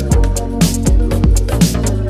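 Electronic background music with a steady beat, a kick drum about twice a second over sustained bass and synth notes.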